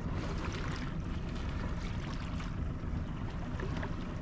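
Steady wind and water noise aboard a sailboat under way, with a continuous low rumble and a few brief hissing washes of water in the first couple of seconds.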